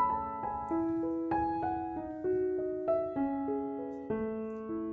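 Background piano music: a melody of ringing notes, a few a second, each fading out over held lower notes.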